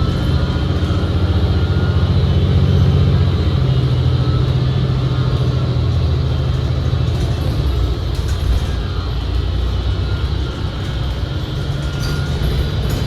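Cabin noise of a New Flyer XD60 articulated diesel bus under way: a loud, steady low drone whose pitch shifts a few times. It is dominated by a transmission sound the rider calls very weird, which covers almost all of the engine sound.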